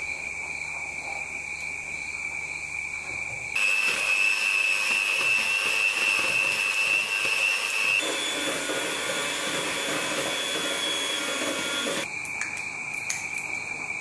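Electric hand mixer running, its beaters whirring through batter in a stainless steel bowl: a steady high motor whine. It gets louder and a little higher about three and a half seconds in, shifts pitch again around eight seconds, and drops back to the first, quieter whine near the end.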